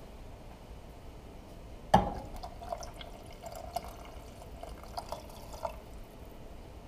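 Water poured from a glass measuring cup into a stainless steel pot of simmering sauce, splashing and trickling for a few seconds, with small drips and clicks. A sharp knock about two seconds in, as the cup meets the pot, is the loudest sound.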